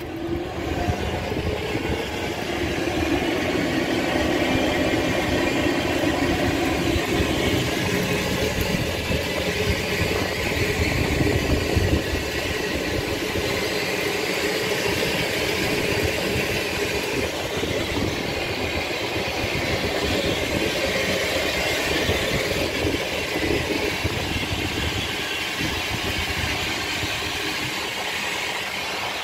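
Electric 36-volt 1970s Club Car golf cart driving along a paved street, its motor, drivetrain and tyres running. It picks up over the first few seconds, then runs steadily.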